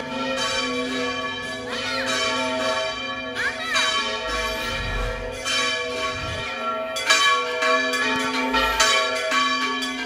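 Church bells ringing, several bells overlapping, their tones hanging on with fresh strikes every so often.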